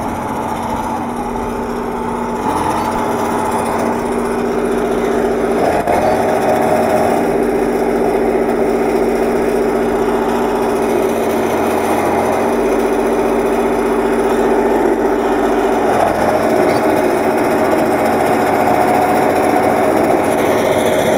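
T-150 tractor's diesel engine running hard under load while the tractor, hitched to harrows, slips its wheels in deep mud. Its note shifts a few times as the revs change.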